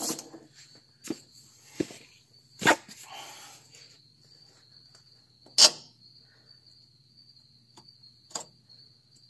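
A few scattered light knocks and clicks, the loudest about a third of the way in and just past halfway, as a bolt is worked by hand into the strut rod bushing on a 1965 Corvair's rear suspension. A faint steady high-pitched tone runs underneath.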